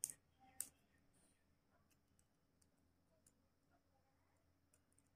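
Thin metal pry tool clicking against the steel casing of a SanDisk Cruzer Force flash drive as its locking catches are worked open: two sharp clicks within the first second, then a few faint ticks.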